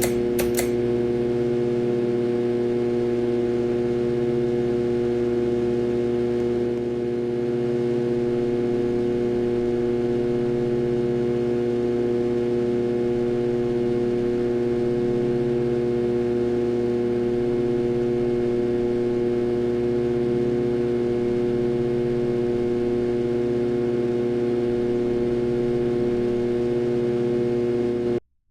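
Harbor Breeze Ocracoke ceiling fan running with a very loud, steady hum, a sign of its bad motor.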